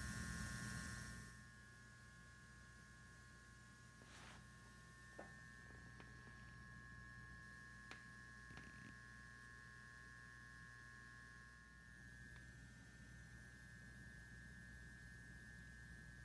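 Near silence: room tone with a steady faint electrical hum. A light hiss drops away a little over a second in, and there are a few soft ticks.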